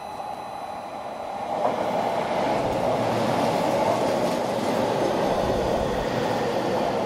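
Seibu 6000 series electric train pulling into the station platform; its running noise builds about a second and a half in and then holds steady as the cars roll past close by.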